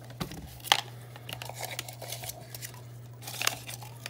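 Packing wrap being torn and crinkled by hand as a small wrapped package is opened: scattered rustles and crackles, with a sharp click about three-quarters of a second in. A steady low hum runs underneath.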